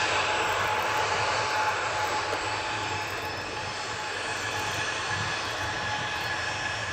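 Boeing 737-800 jet engines (CFM56-7B turbofans) running at low taxi thrust as the airliner rolls slowly onto the runway: a steady jet rush with a high fan whine over it.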